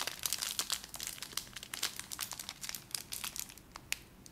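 Crinkling of a small snack wrapper being unwrapped by hand from a Goldilocks polvoron: a dense run of crackles for about two seconds, thinning to a few scattered crackles toward the end.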